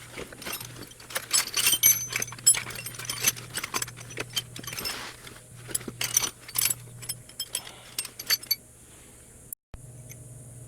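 Small metal tools and hardware clinking and rattling against each other in quick, irregular clinks and clatter, which stop about eight and a half seconds in, over a steady low hum.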